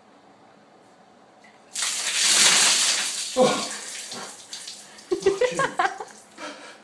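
A bucket of ice water dumped over a person, a sudden loud splash and pour that starts about two seconds in and tails off, followed by a man's short cries and gasps.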